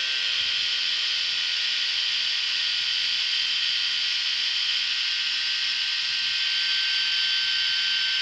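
Remington R4 rotary electric shaver running steadily with an even, high whine, its battery low.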